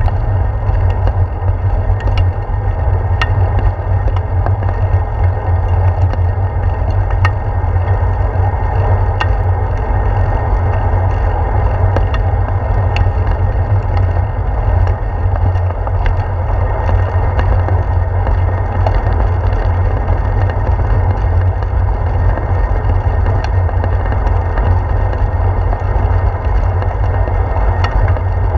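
Steady rumble of wind and road vibration picked up by a handlebar-mounted GoPro Hero 4 on a bicycle rolling along a paved trail, with occasional sharp ticks from bumps in the path.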